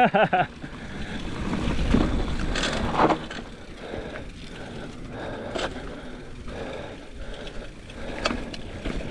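Mountain bike being ridden down a dirt trail: a rushing noise from tyres and air moving past, with scattered knocks and rattles from the bike. The rush swells louder from about one to three seconds in, then settles.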